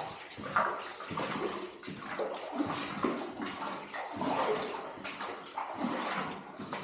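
Footsteps splashing through shallow water, an uneven run of steps and sloshes.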